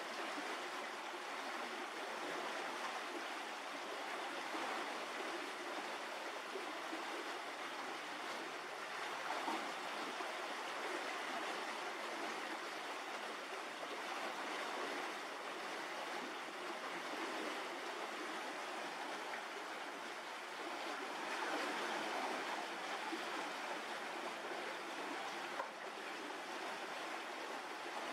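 Steady, unbroken rushing noise, even in level, with no distinct calls or knocks.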